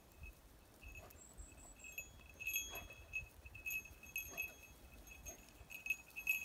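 A small collar bell on a dog jingling irregularly as the dog moves, one high clear note ringing on and off, with a few faint soft knocks.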